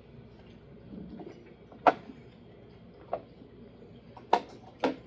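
Four sharp, short clicks of utensils against a dish, spaced unevenly over a few seconds, the last two close together.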